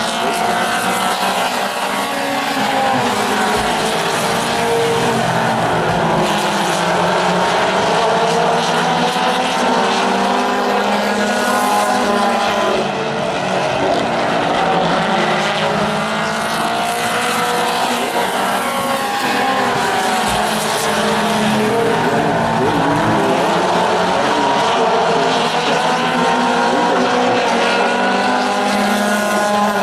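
Several Mini Stock race cars racing around a paved oval, their engines layered together. The engine pitch rises and falls in slow waves as the cars come past and move away.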